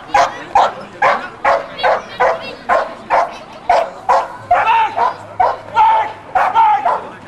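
Belgian Malinois barking rapidly and continuously, about two barks a second, with a few longer, drawn-out barks near the middle.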